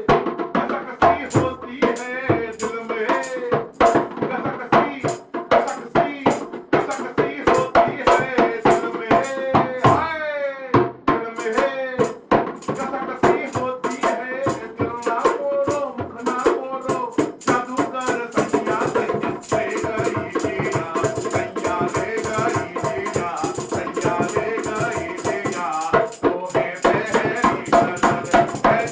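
Hand-played dholak, a two-headed barrel drum, beating a steady chutney-style rhythm, with a man's singing voice over it for much of the time.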